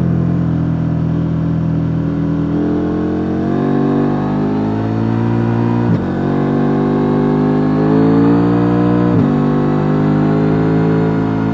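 KTM 890 Duke R's stock-exhaust parallel-twin engine pulling hard under acceleration. The pitch climbs, drops sharply at an upshift about six seconds in, climbs again, and drops at a second upshift about nine seconds in.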